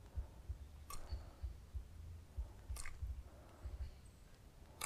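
Three short, sharp splashes at the water's surface, about two seconds apart, as a topwater lure is twitched across the water and small fish strike at it. A low rumble runs underneath.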